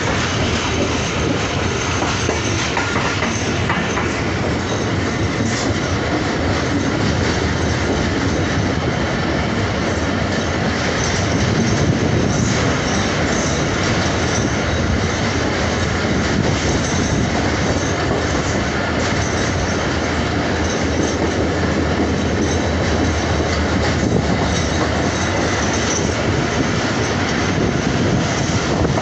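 Express passenger train running through a station at about 115 km/h, heard from an open coach doorway: steady, loud noise of the coach's wheels running on the rails.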